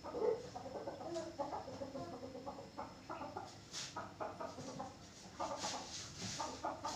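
Chickens clucking in a quick, irregular string of short calls.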